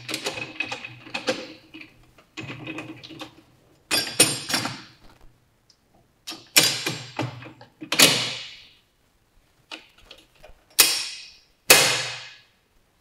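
Metal parts of a motorcycle's rear wheel assembly being fitted by hand as the axle is slid through the swingarm and wheel. First comes a run of light clatter and clinks, then about five separate sharp metallic knocks, each ringing briefly.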